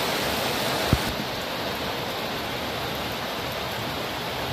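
Steady hiss of rain falling, with a brief low thump about a second in.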